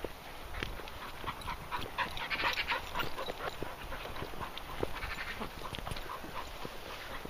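Dogs panting and moving through grass, with footsteps and rustling on a grassy path; the rustling is thickest about two to three seconds in.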